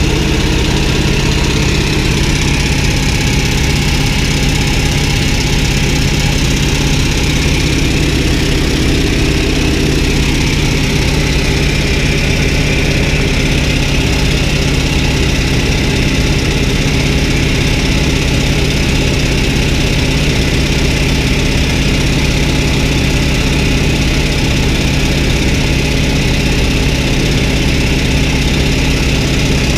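North American T-28 Trojan's radial engine and propeller droning steadily in flight, heard inside the cockpit, with a steady hiss of air over it.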